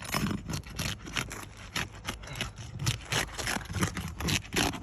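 Roof snake seal-breaking tool scraping under roof shingles in quick repeated strokes, about four a second, breaking the shingles' seal strips.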